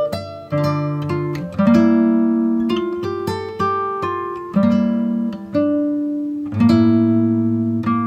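Background music: a steady run of plucked notes and chords, each ringing out and fading before the next.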